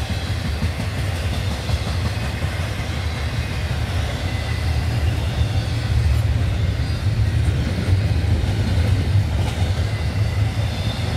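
Cars of a CSX intermodal freight train, double-stack container well cars and trailer flatcars, rolling past on the rails with a steady, loud low rumble.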